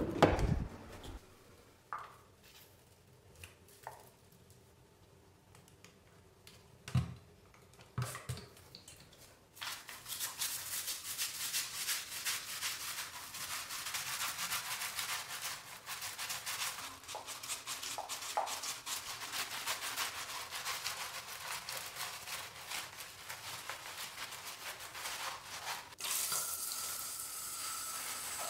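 A few scattered knocks and clicks, the loudest right at the start, as a plastic foot-scrubber slipper is handled. Then from about ten seconds in, a steady hiss of running shower water with a foot scrubbing back and forth on the slipper's bristles. Near the end the hiss turns brighter as the shower head sprays straight onto the foot.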